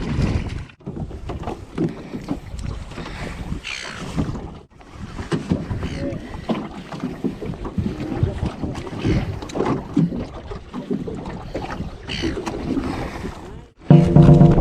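Wind buffeting the microphone over water and boat noise on a small fishing boat, with scattered knocks and handling sounds. The sound cuts off abruptly a couple of times, and music starts near the end.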